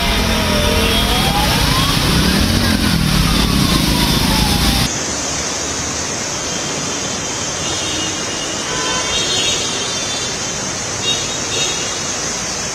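Motor scooters and cars driving through flooded streets in heavy rain: engines running under a steady hiss of rain and water spray. The first part has a heavy low rumble and a tone that glides down and up in pitch. About five seconds in, it cuts suddenly to a quieter, thinner hiss.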